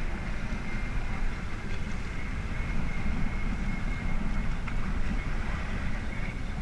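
Steady low rumble of an engine running under way, with a faint steady high whine over it.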